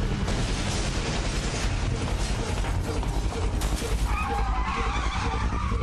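Animated race car sound effects: a car running flat out over a heavy low rumble, with tyres screeching from about four seconds in.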